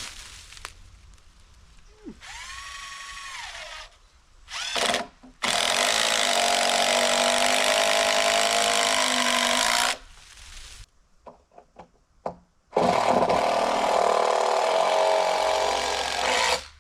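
Power drill running: a short whir that winds up and down, a brief burst, then two long steady runs of several seconds each, with a few clicks in the gap between them.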